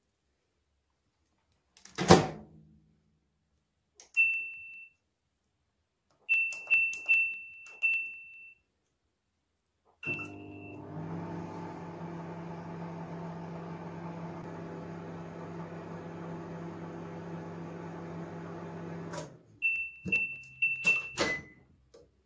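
Microwave oven in use: the door shuts with a thunk, keypad buttons beep several times, then the oven runs with a steady hum for about nine seconds and stops abruptly. A quick run of beeps and clicks follows near the end as the door is opened.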